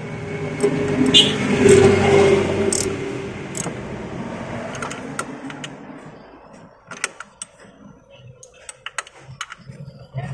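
Steel hand wrench clicking and clinking on the timing belt tensioner bolt of a 4D56 diesel engine, in scattered sharp clicks over the second half. A steady background hum is loudest in the first seconds and fades away by about halfway.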